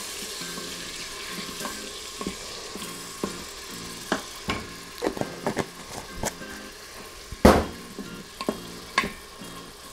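Minced garlic sizzling in melted butter in an Instant Pot's stainless steel inner pot on sauté, stirred with a wooden spoon. From about four seconds in, the spoon knocks against the pot several times, loudest about seven and a half seconds in.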